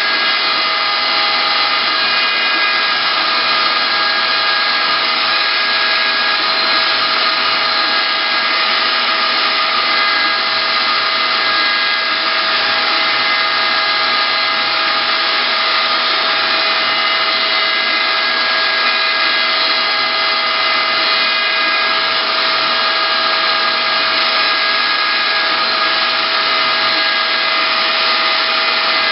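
CNC wood-carving router running: its spindle motor gives a loud, steady whine of several fixed tones over a hiss, unchanging throughout.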